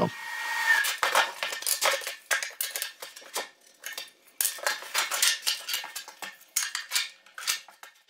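Thin planed wooden strips clattering and knocking against each other and the workbench as they are gathered up, an irregular string of light wooden clicks.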